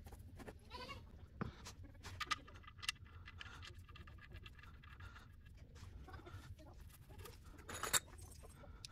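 Faint, scattered clicks and scrapes of a new oil filter and the oil-pan drain plug being fitted and threaded in by hand under the car, in footage sped up four times, with a louder rasp near the end.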